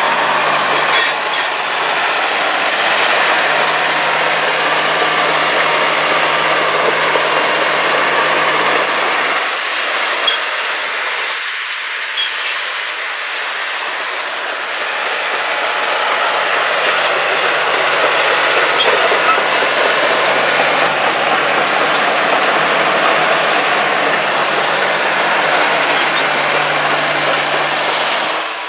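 Hydraulic crawler excavator travelling over gravelly sand: its diesel engine running under a rattling clatter of the steel track links. The low engine hum drops away for several seconds near the middle, then comes back.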